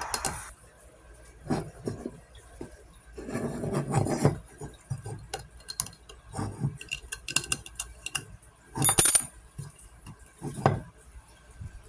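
Irregular clinks, knocks and rattles of small hard parts being handled and set down on a work surface, with one louder clatter about nine seconds in.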